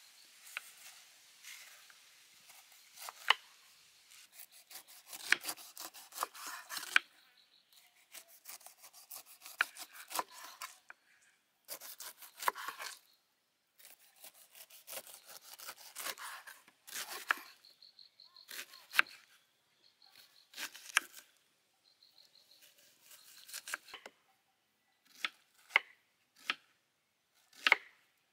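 Knives cutting pineapple and onion on wooden chopping boards: clusters of quick cuts as the pineapple rind is peeled, then separate sharp knocks of the blade on the board, roughly one a second, near the end.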